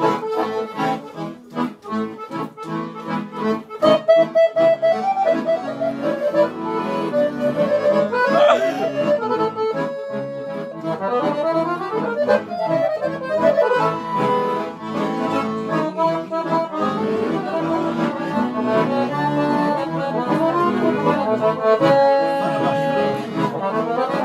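Piano accordion music: a Romanian party-style folk instrumental with fast runs of notes over chords, opening with short detached chords for the first few seconds.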